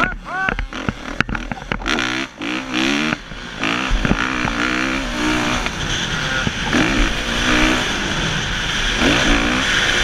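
Kawasaki KX450F's single-cylinder four-stroke engine ridden hard, revving up and down in quick blips for the first couple of seconds, then held at high revs under full throttle, with wind rushing over the helmet camera from about four seconds in.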